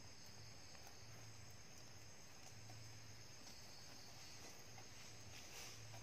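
Near silence: a faint, steady, high-pitched cricket trill, with a few faint scrapes of a metal spoon spreading tomato sauce over bread in a nonstick frying pan.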